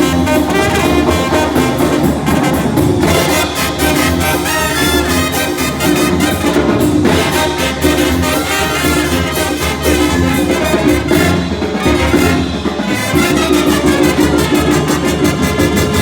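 Banda music: a loud instrumental passage led by trumpets and trombones, with no singing.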